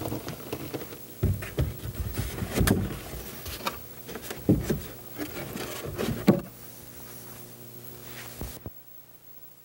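A cardboard ceiling insert being fitted into a wooden scale model of a hall: irregular knocks, scrapes and rubbing of board against the wood frame. A steady low hum is left after about six and a half seconds.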